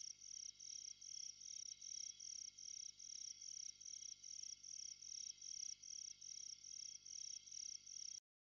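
Cricket chirping faintly as the closing sound of a song, about three even chirps a second over a faint low hum, cutting off suddenly near the end.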